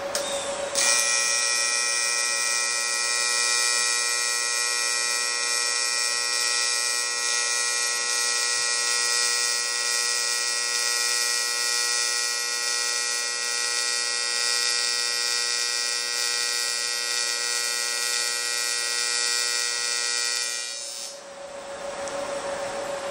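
AC TIG welding arc on aluminum from a Lincoln Electric Square Wave TIG 205 at 120 amps and a 120 Hz AC frequency: a steady, even buzz that starts sharply about a second in and cuts off about two seconds before the end.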